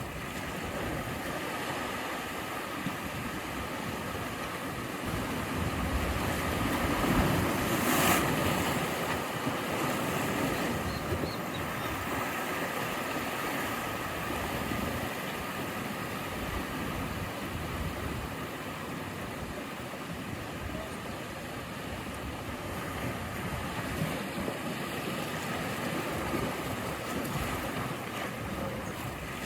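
Sea waves breaking and washing in steadily, with one louder surge about seven to eight seconds in. Wind noise mixes in.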